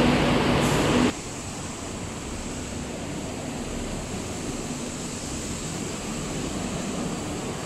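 A loud, steady mechanical hum with a low tone cuts off suddenly about a second in. After it, a steady hiss of street and traffic background noise continues beside a roadway.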